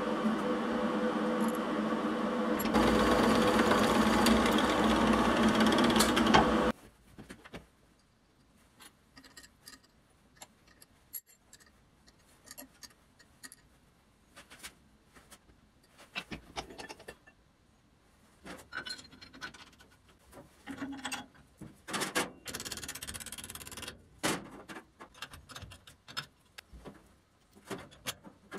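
A machine runs loudly and steadily, with a few steady tones, gets louder about three seconds in, then cuts off suddenly at about seven seconds. Scattered light clicks and knocks of parts being handled follow.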